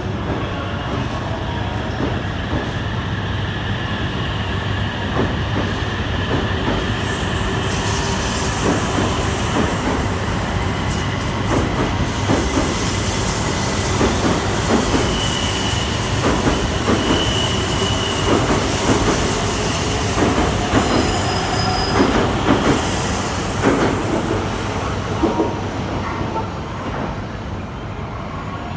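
E2 series Shinkansen train pulling out of the platform: running noise building with wheels clicking over rail joints and points, and brief high wheel squeals in the middle. The sound eases off near the end as the train moves away.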